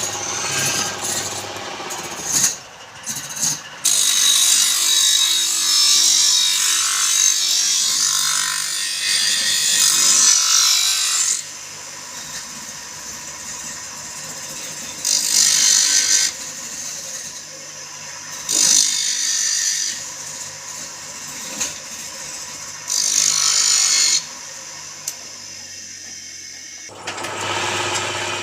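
Wood lathe running with a steady hum while a tool or abrasive scrapes the spinning palm wood. There is one long pass of cutting hiss, then several shorter passes of about a second each.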